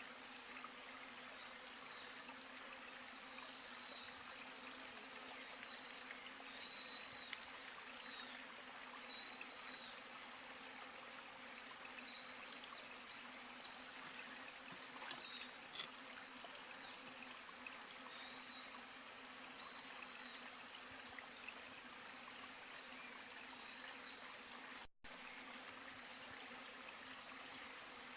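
Outdoor ambience of steadily running water, with short high chirps every second or two from a small animal. The sound cuts out for a moment near the end.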